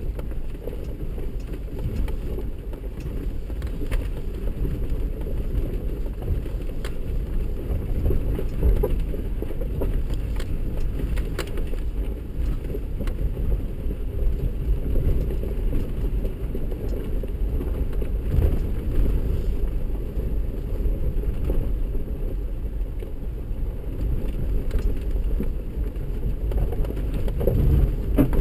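Cabin noise of a 4x4 driving a rocky dirt trail: a steady low rumble of engine and tyres on loose rock, with scattered knocks and rattles as it jolts over stones.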